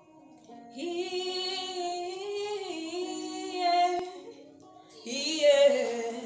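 A woman's voice singing long, wavering held notes without clear words, in two phrases: the first from about a second in, the second, louder one starting about five seconds in.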